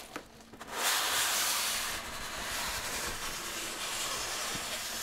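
Styrofoam packing blocks sliding out of a tight cardboard box: a long scraping hiss that starts about a second in, is loudest for about a second, then goes on softer and steady.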